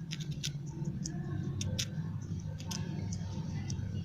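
A squirrel gnawing a biscuit with its sharp teeth: quick, irregular crisp clicks and crunches.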